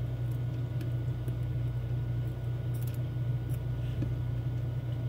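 A steady low hum, with a few faint small clicks of tiny lock pins being handled and arranged in a pinning tray.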